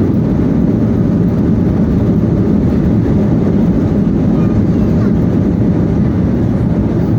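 Steady, loud rumble of engine and airflow noise inside the cabin of an Airbus A320 airliner during its landing.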